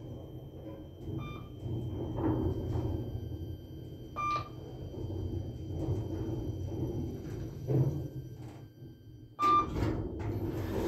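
Ride inside a KONE elevator cab: a steady low hum of the car travelling, with short electronic beeps from the car's signal about a second in, at about four seconds, and again at about nine and a half seconds as the car arrives, followed by louder noise near the end.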